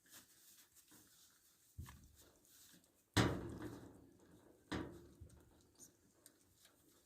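Three sudden thumps, about a second and a half apart, the middle one the loudest, each dying away over about a second.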